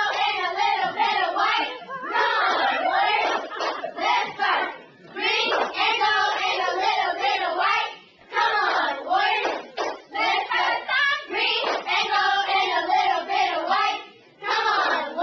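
A group of young cheerleaders chanting a cheer in unison in phrases of a few seconds each with short breaks between them, along with hand claps.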